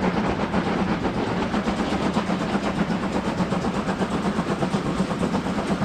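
Battery-powered toy train running: a small motor's steady hum under a fast, even clatter from its gears and wheels.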